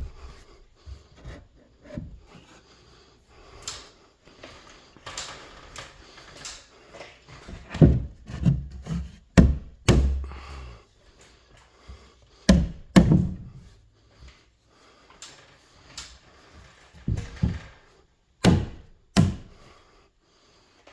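Wooden boards being handled, with irregular knocks and heavy thuds of timber against timber and some rubbing and scraping.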